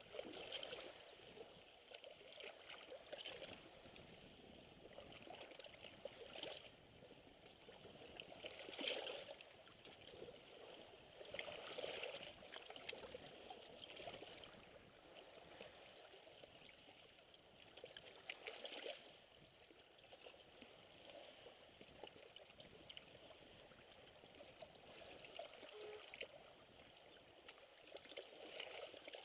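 Small sea waves lapping and splashing faintly against a rocky shore, swelling and falling back every few seconds, with the strongest splashes around a third of the way in.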